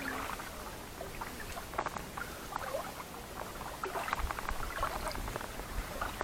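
Scattered light rustling and small clicks, irregular and close by, like something being handled or shuffled.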